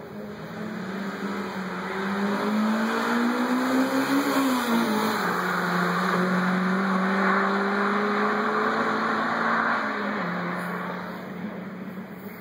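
Hill-climb race car's engine accelerating up the course, its pitch rising and then dropping at a gear change about four seconds in. It holds high while the car passes, drops again about ten seconds in, and fades away near the end.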